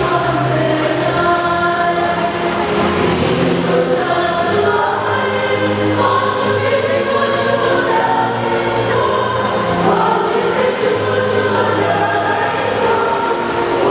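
A choir singing a slow church hymn in long held notes, over a steady low accompaniment.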